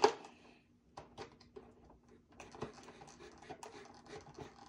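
An action figure's cardboard box being handled and pried open: a sharp click at the start, then scattered scraping and light ticks.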